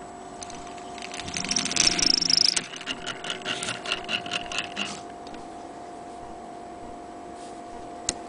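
Antique Frister & Rossmann hand-crank sewing machine being turned by hand: rapid mechanical clicking and whirring, loudest about two seconds in, then a slower pulsing rhythm that stops about five seconds in. One sharp click near the end.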